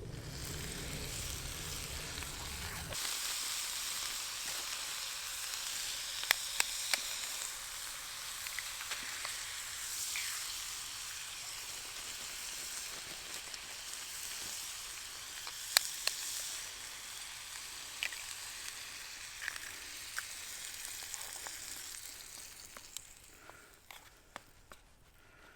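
A breakfast scramble sizzling in a small titanium pan on a camp stove, with scattered clicks and scrapes of a utensil stirring it. A low rumble runs under the first few seconds, and the sizzle dies down near the end.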